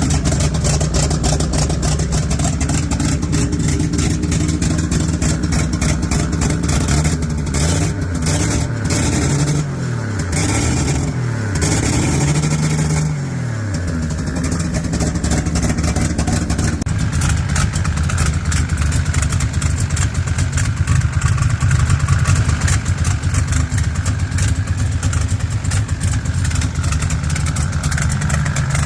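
Engine with leaking exhaust running at idle, a fast ticking chatter over the exhaust note. About nine seconds in the throttle is blipped twice, the pitch rising and falling each time, before it settles back to idle.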